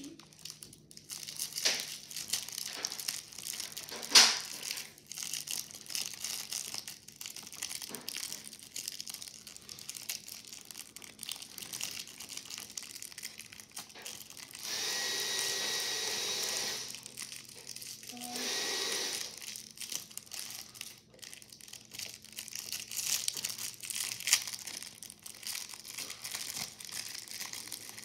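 Clear plastic wrapper crinkling and tearing as a small squishy mochi toy is unwrapped by hand, with sharp crackles throughout. About halfway through, a steady whirring noise sounds for about two seconds, then again briefly.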